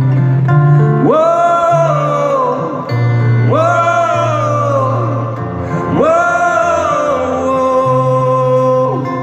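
Live band playing an instrumental passage: three long melody notes, each sliding up, holding and falling away, over steady low bass notes.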